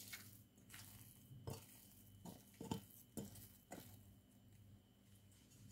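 Faint, scattered taps and soft knocks of a bowl being handled as risen yeast dough is pulled out of it onto an oiled countertop.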